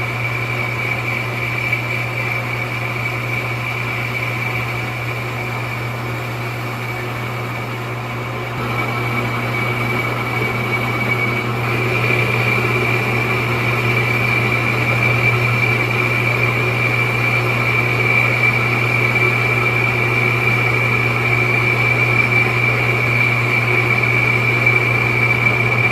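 Metal lathe turning a flywheel while the cutting tool takes a pass, a steady hum with a steady high tone over it. It gets louder about nine seconds in and again about twelve seconds in.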